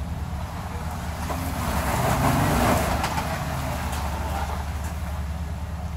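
An off-road vehicle's engine running at low revs as it crawls over the rocks. It swells louder for about a second, two seconds in, with a rush of broad noise, then settles back.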